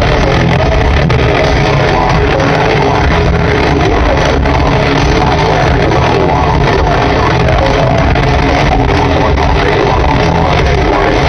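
Heavy metal band playing live at concert volume: distorted electric guitars, bass and pounding drums, recorded with heavy distortion and a muffled, clipped sound.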